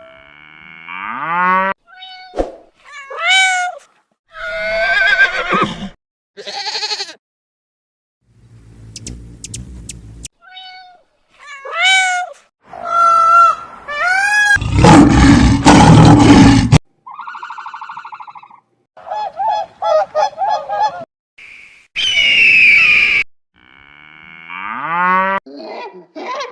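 A run of different birds' calls cut back to back, each starting and stopping abruptly: gliding, pitched squawks and cries, rapid repeated notes, and a loud harsh, noisy stretch about halfway through.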